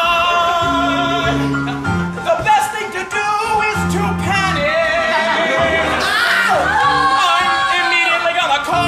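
A man singing an improvised show tune into a microphone, his voice wavering and sliding in pitch, over an instrumental accompaniment of held low notes that change every second or so.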